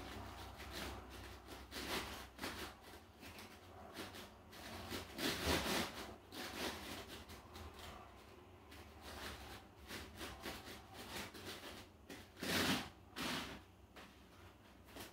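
Irregular rubbing and scuffing as a barefoot person shifts balance on an inflatable balance disc, with louder scuffs about five seconds in and twice near the end.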